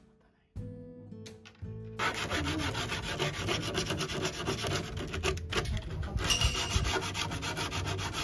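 Corner of a composite (artificial wood) bench slat being rubbed down by hand with an abrasive (ヤスリ), in quick back-and-forth scratching strokes that start about two seconds in, rounding off the sharp edge as a finishing step.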